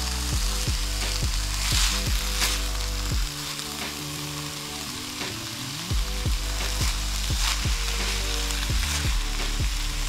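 Diced pork, potato and onion sizzling steadily as they are stir-fried in a nonstick pan, with a wooden spatula scraping through them every so often. Background music with a steady beat plays underneath.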